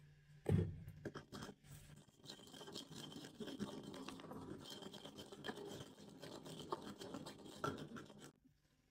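Wooden pestle grinding a wet green chutney in a terracotta mortar: a dull thump about half a second in, then steady wet scraping and mashing that stops shortly before the end.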